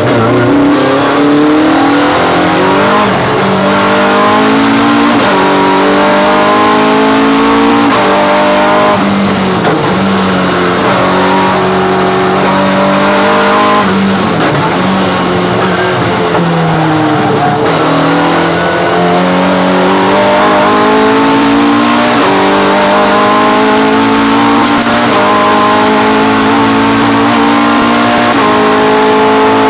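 Race car engine heard from inside the cockpit, pulling hard through the gears. The pitch climbs and drops sharply at each upshift, then falls away in stretches as the car slows for corners, and climbs again.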